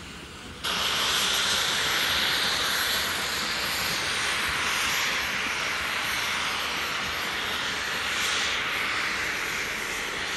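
Steam hissing from LMS Stanier 8F 2-8-0 No. 48151 as it pulls its train away: a loud, steady rush of steam. It starts suddenly just under a second in and eases a little in the second half.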